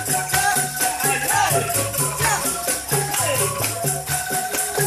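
Upbeat dance music with a steady beat and a bouncing bass line.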